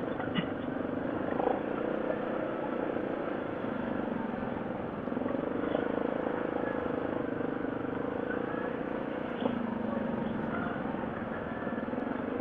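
Yamaha 700 ATV's single-cylinder engine running steadily as it rides along a dirt trail, its drone shifting slightly in pitch with the throttle. There is light rattling from the machine, and a single knock about nine seconds in.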